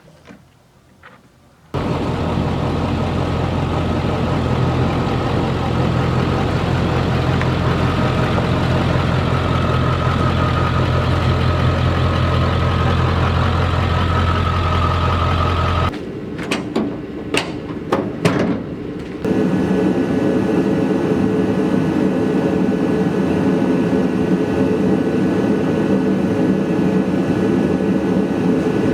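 A shop machine's electric motor running steadily with a strong hum. It stops about halfway through for a few seconds of clicks and knocks, then runs again at a different pitch.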